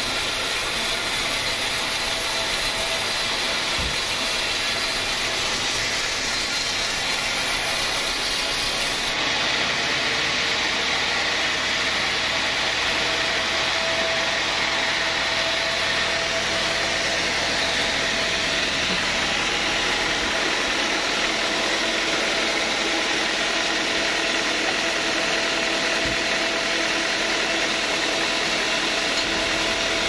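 Large band sawmill running steadily, its blade cutting a teak log. The highest hiss drops off about nine seconds in, while the machine's drone continues.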